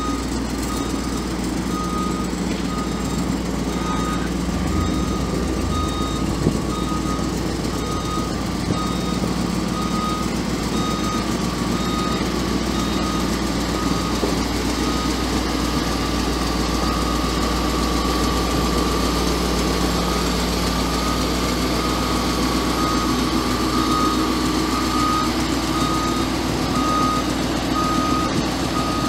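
A truck engine idling steadily, with a high electronic warning beep repeating at an even pace over it throughout.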